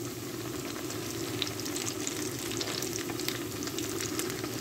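Fish kebabs shallow-frying in hot oil in a pan: a steady sizzle with many scattered crackling pops.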